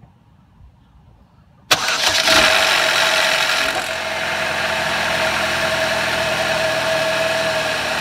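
GM Ecotec 2.2 L61 inline four-cylinder cranking and firing from cold just under two seconds in, with rattling and clunking from the timing chain for about the first two seconds of running before it settles into a steady idle. The start-up rattle is the sign of a failing timing chain tensioner, which the owner blames on the old-style tensioner revision; it can also mean a stretched chain or broken guides.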